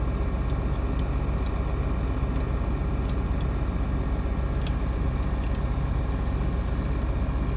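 Combine's diesel engine running steadily in the background, with a few faint short clicks over it.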